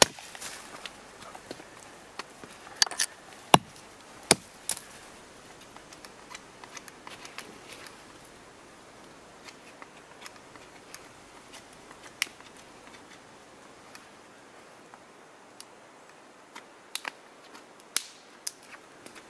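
Hatchet chopping wood on a stump: a handful of sharp strikes in the first five seconds, the loudest two about a second apart. After that there are only scattered light clicks and cracks over a faint hiss.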